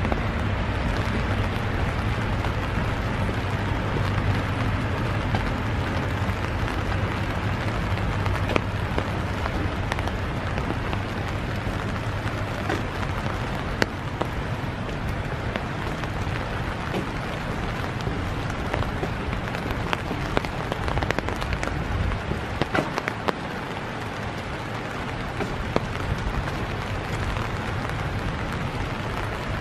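Steady rain falling, a continuous hiss with scattered sharp taps of single drops.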